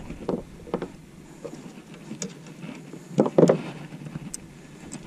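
Scattered light clicks and knocks of gear being handled aboard a kayak, with one louder, longer rustle about three seconds in.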